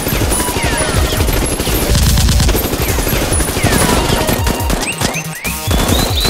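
Rapid automatic gunfire sound effects, shots fired in a continuous stream, with a few falling whistles among them.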